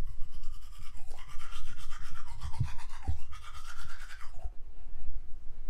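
Teeth being brushed with a manual toothbrush: quick, rapid scrubbing strokes that stop about four and a half seconds in.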